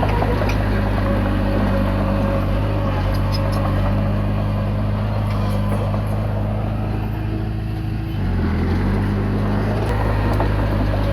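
Komatsu D20P bulldozer's diesel engine running steadily, its pitch dipping briefly and coming back up about eight seconds in.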